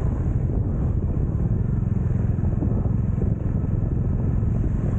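Motorcycle engine running steadily while riding, under a low, even rumble of wind and road noise.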